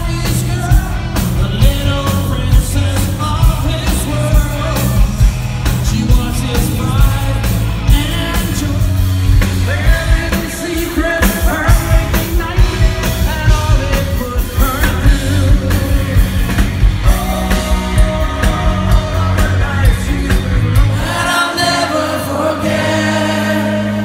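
Live rock band playing loud: a male singer over electric guitar, Casio keytar and a steady drum beat. Near the end the drums stop and a held low chord rings on under the singing.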